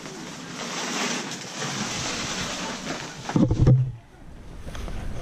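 Leaves and tall grass rustling as the camera pushes through the vegetation, a steady hiss of noise. A short loud voice sound comes about three and a half seconds in.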